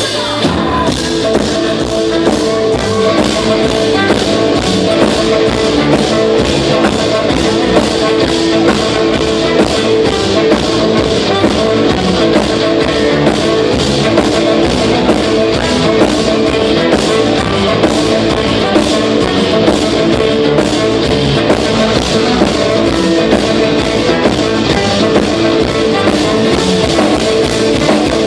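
Live rock band playing loudly: electric or acoustic guitar and drum kit driving a steady, even beat.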